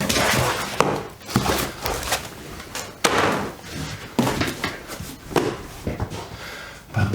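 Cardboard box being opened and its packaging handled: repeated scraping and rustling of cardboard with several sharp knocks.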